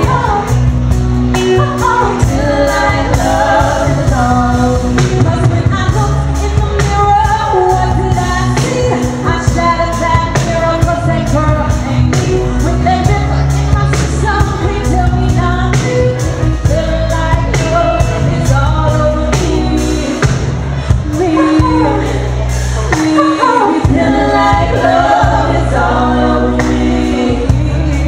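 A woman singing live into a handheld microphone, backed by a band with electric bass guitar and drums. The sung melody moves continuously over a heavy bass line and a steady drum beat.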